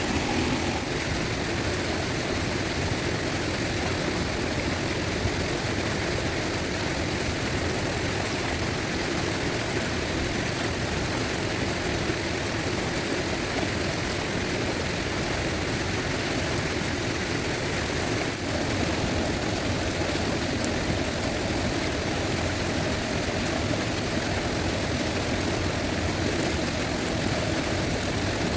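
Fast-flowing river rushing, a steady and even roar of water.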